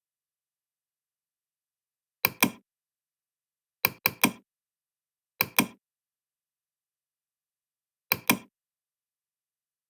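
Sharp knocks in quick pairs, four groups: a pair a couple of seconds in, a run of three near the middle, another pair shortly after, and a last pair near the end, with complete silence between.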